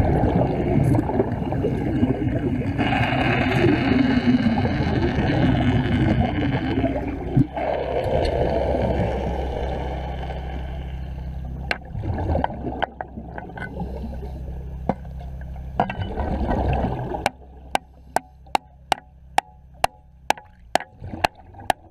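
Underwater bubbling and gurgling as exhaust bubbles stream from a diver's helmet during wet welding. About seventeen seconds in, this drops away suddenly and a steady clicking beat takes over, about two and a half clicks a second.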